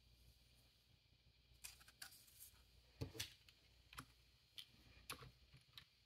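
Scattered light clicks and taps of a 3D-printed plastic frame and a small screwdriver being handled, the loudest pair about three seconds in.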